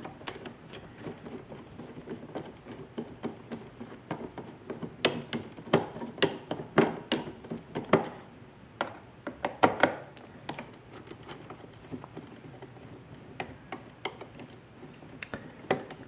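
Scattered light clicks and taps from hands and a screwdriver working on a Roomba robot vacuum's plastic underside, densest between about five and ten seconds in.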